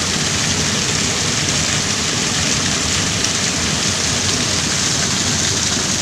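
Heavy rain falling, a loud steady hiss with no let-up.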